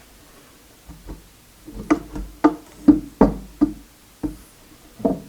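Drawers being pushed shut into a cabinet on ball-bearing slides: a run of about eight sharp, hollow-ringing knocks over some four seconds.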